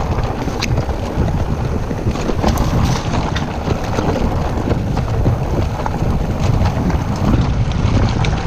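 Wind buffeting the action camera's microphone over the rumble of a Trek Powerfly FS 9 electric mountain bike's tyres on a rough dirt-and-stone trail at speed, with many small sharp clicks and rattles from stones and the bike.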